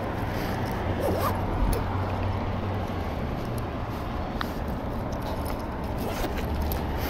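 Metal wire shopping cart pushed over asphalt: a steady rolling rumble from the wheels and the basket rattling, with a few light clicks.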